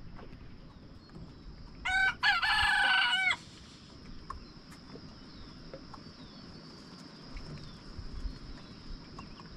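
A rooster crowing once, about two seconds in: a short first note, then a long drawn-out call, about a second and a half in all. A steady high-pitched hum runs underneath.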